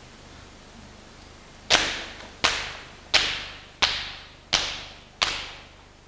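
Six sharp hand claps in a slow, even beat, about one every 0.7 seconds, each ringing out in the hall's reverberation.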